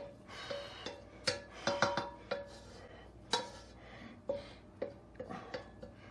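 A utensil scraping and knocking against a wok as cooked scrambled egg is scraped out into a bowl, with sharp knocks about a second and a half in, around two seconds and near three and a half seconds. Light plucked background music with short repeated notes plays underneath.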